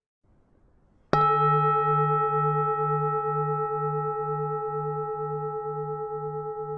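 Buddhist temple bell struck once about a second in, then ringing on with a slow, pulsing wobble in its deep hum as it gradually fades.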